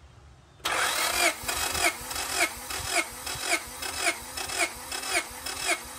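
Honda B16A four-cylinder engine cranking on its starter motor for a compression test, starting about half a second in, with an even pulse just under twice a second. The cylinder under test builds to 225 psi, a healthy reading.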